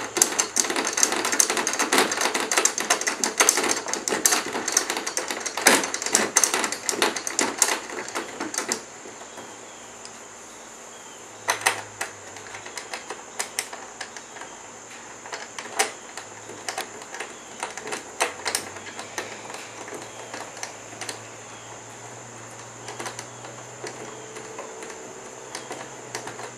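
Plastic and metal parts of a Scotty rod-holder base clicking and rattling as it is fitted on kayak track hold-downs and its plastic knobs are screwed down by hand. Rapid, dense clicking for the first eight seconds or so, then scattered single clicks.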